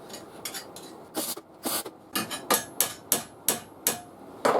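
Hammer striking steel, about a dozen sharp blows, coming faster in the second half at about three a second, some with a faint metallic ring.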